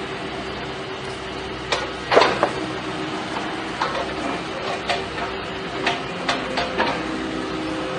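A machine running with a steady hum, broken by a string of irregular sharp metallic clicks and clanks. The loudest clank comes a little over two seconds in.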